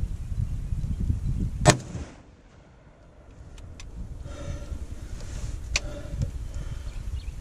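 A single deer-rifle shot about a second and a half in: one sharp, very loud crack with a short tail, over low rumbling handling noise. The sound drops away for about a second right after the shot.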